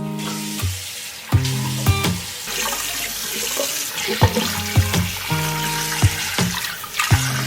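Water running steadily from a tap into a sink, over light background music.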